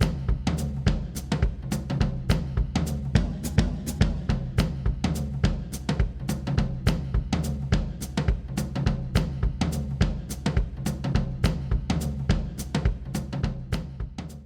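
Background music driven by a drum kit: a fast, steady beat of kick and snare over a low bass line, fading out at the end.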